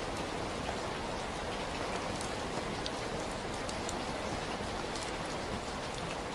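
Steady rain falling, a dense even hiss with scattered individual drops pattering on a surface.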